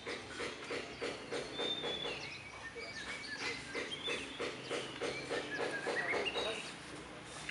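A pit bull breathing in quick rhythmic huffs, about five a second, with birds chirping in the background.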